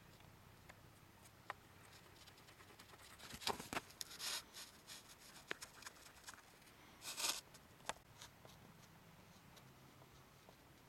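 Grip wax rubbed onto the base of a cross-country ski by hand: faint scraping strokes with small clicks, strongest a few seconds in and again about seven seconds in.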